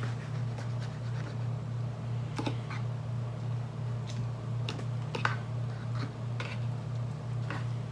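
A fork clicking and scraping against a plastic bowl as instant ramen noodles are stirred: a scattering of irregular light clicks over a steady low hum.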